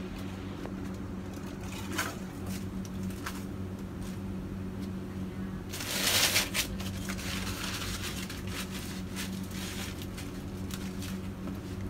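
Aluminium foil rustling and crinkling as a foil-wrapped pork roast is handled on a baking tray, loudest about six seconds in, over a steady low hum.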